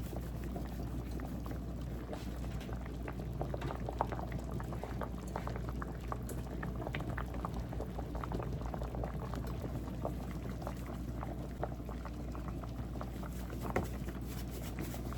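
Pot of seafood soup boiling on the stove, bubbling steadily with many small irregular pops.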